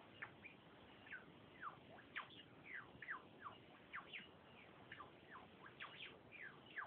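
Faint, thin calls from an unidentified bird, each a quick downward slide in pitch, repeated irregularly about three times a second over a steady hiss.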